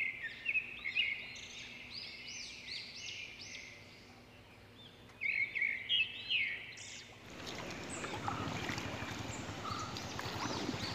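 Birds calling outdoors in quick series of short chirps for about the first seven seconds. About seven seconds in, a steady broad noise with scattered small clicks comes up underneath and runs on.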